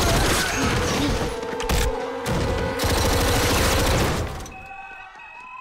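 Rapid automatic gunfire, a dense fusillade of shots with a couple of short breaks, dying away about four seconds in. A few steady high tones follow near the end.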